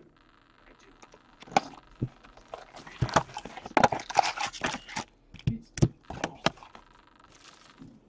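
A hockey card hobby box (2008-09 Upper Deck SPx) being opened by hand and its foil-wrapped packs pulled out and stacked on a table. The sound is crinkling wrappers, rustling cardboard and a string of sharp taps and clicks, busiest in the middle few seconds.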